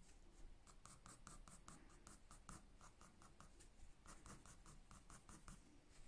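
Graphite pencil scratching on drawing paper in quick, short hatching strokes, about five a second, with a brief lull in the middle. The strokes lay in individual fur hairs.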